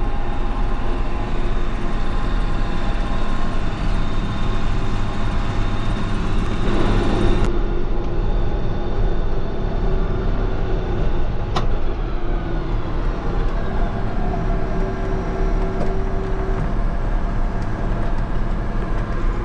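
Farm tractor engine running at a steady speed while mowing hay. The upper end of the sound drops away abruptly about seven and a half seconds in, and there is one sharp click about twelve seconds in.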